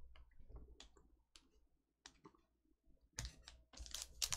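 Glossy trading cards clicking as they are flipped and slid off one another in the hand: a few sharp, scattered ticks. After a short quiet stretch, a denser rustle of handling starts about three seconds in.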